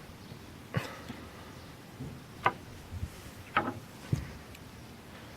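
A few light, separate clicks and knocks from small tools and parts being handled during soldering work, about five over several seconds.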